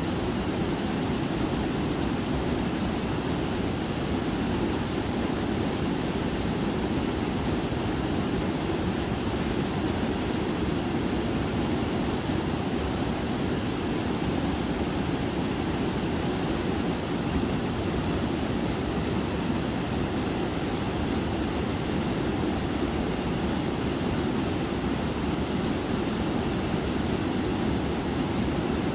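Small mountain stream and waterfall rushing steadily, a deep, even sound of flowing water.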